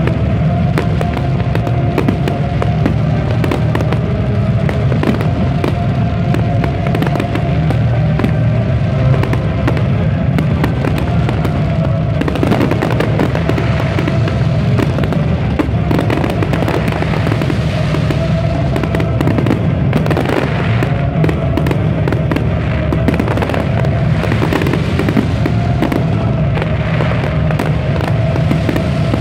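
Fireworks display going off in quick, unbroken succession: a dense stream of bangs, pops and crackles with no let-up. Music plays underneath with a steady held note.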